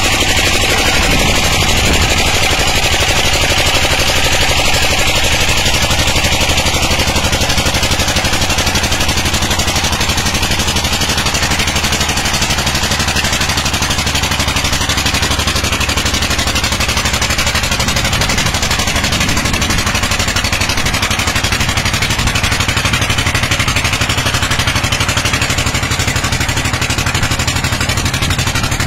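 Dompeng diesel engine running steadily and loudly, driving the water pump of a land tin mine, with an even hiss above its low drone.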